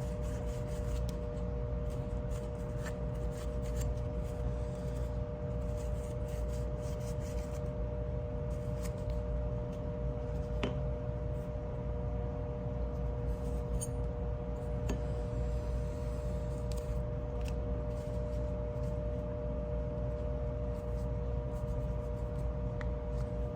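Soft rubbing and scattered light clicks as small folding-knife parts are wiped clean and handled by hand, over a steady background hum.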